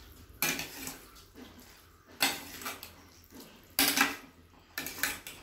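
A spoon stirring thick lemon pickle in a stainless steel pan, knocking and scraping against the pan several times, one to two seconds apart.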